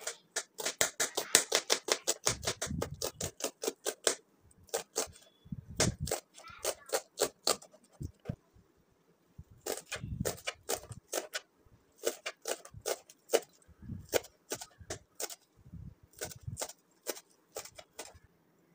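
Kitchen knife chopping spring onions on a plastic chopping board: rapid runs of sharp taps, about eight a second at the fastest, broken by short pauses between runs.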